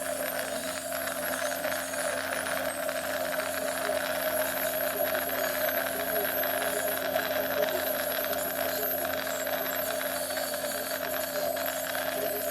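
Dental office equipment running with a steady mechanical hum, holding one pitch throughout, with faint irregular rattling above it.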